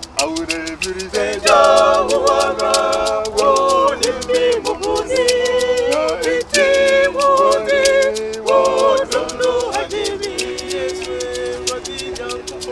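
Music: several voices singing a melody over a quick, steady percussion beat.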